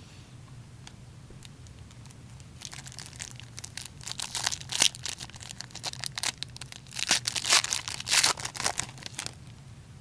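A hockey trading card pack wrapper being torn open and handled, a run of rustling, crackling noises that starts about three seconds in and stops shortly before the end.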